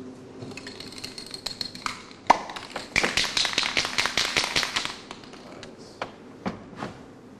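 A quick run of sharp taps and clicks, thickest in the middle, with one louder crack about two seconds in.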